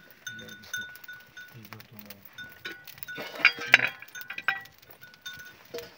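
A flock of sheep with small bells clinking again and again, and bleating. The loudest sound is a brief harsh call about three and a half seconds in.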